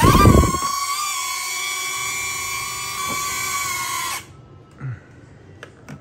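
DJI Neo mini drone's propeller motors spinning up with a rising whine, then holding a steady high-pitched whine for about four seconds before cutting off, with a short low rush of air at the start. The drone is being run after flying in heavy rain without being dried.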